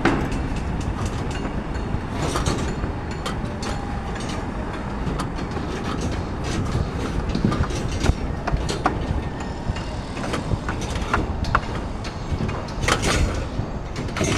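A steady low rumble of construction-site noise with scattered sharp metallic clicks and knocks, a few clustered near the end.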